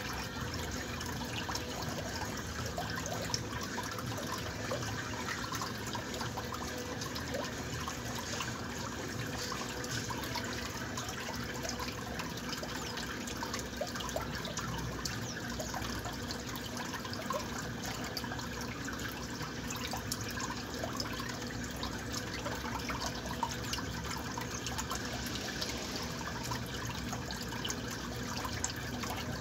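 Top-load agitator washing machine with water running steadily in the tub around a soapy load, a continuous watery rush with small crackles.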